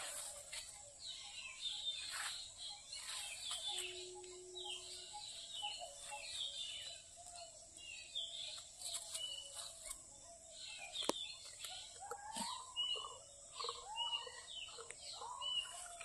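Many small birds chirping and calling, with short sweeping chirps all through and lower calls near the end, over a steady high hiss.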